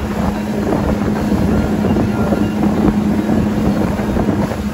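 Motorboat running steadily underway: a constant engine drone, with wind buffeting the microphone.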